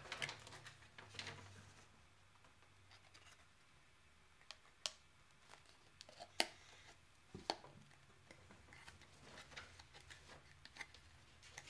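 Quiet handling of a card-game starter-deck box and its small counters, with a few sharp clicks and taps around the middle over a faint steady hum.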